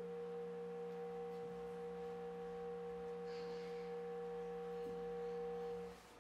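Woodwind instrument sounding long, steady, pure-sounding held tones: a low note and a middle note together, with faint higher tones above, unchanging until they stop together near the end.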